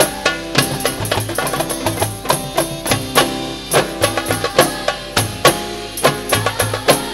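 Hadrah ensemble of rebana frame drums beating a fast, interlocking rhythm under group singing, picked up straight from the sound system's feed.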